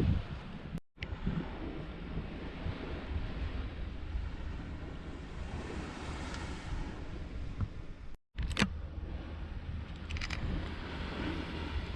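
Wind rumbling on the microphone over the steady wash of sea surf, cut off twice for a split second.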